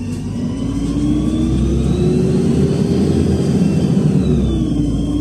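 Interior of a LiAZ 5292.67 city bus accelerating, its compressed-natural-gas YaMZ-53624 six-cylinder engine and ZF automatic gearbox giving a low hum under a whine that rises steadily. About four seconds in the pitch drops as the automatic gearbox shifts up.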